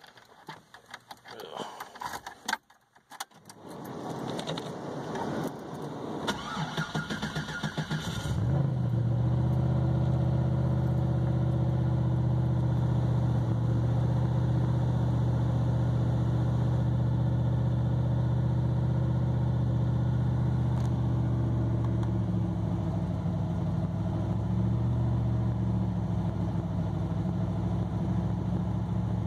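Car engine on Megasquirt engine management being cold-started at 35 degrees. After a few clicks, the starter cranks for several seconds. The engine catches about eight seconds in and settles into a steady cold idle, which shifts slightly lower a little past twenty seconds in.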